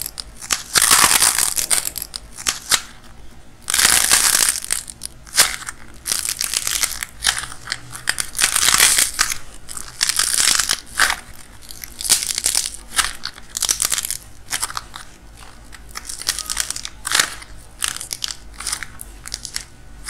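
Dried, painted clay skin cracking and tearing in repeated crackly bursts as hands squeeze and pull it apart, with the soft clay underneath squished between the fingers. The loudest bursts come at the start and about four seconds in.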